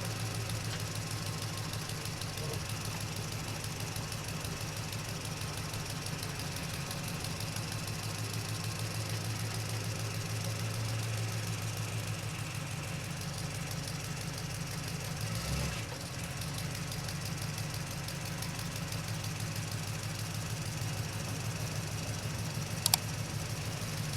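A small motor running steadily with a fast, even throb, with a brief thump about fifteen seconds in and a sharp click near the end.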